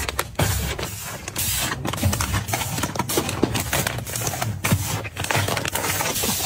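Busy handling noise: quick taps, clicks and knocks with rustling between them, as items are picked up, moved and set down.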